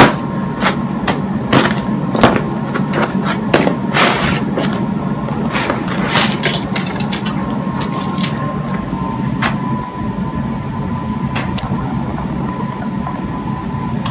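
Small tools and parts being picked up and set down on a paper-covered floor: a scatter of sharp clicks and knocks, thinning out after about nine seconds, over a steady low hum and a faint high whine.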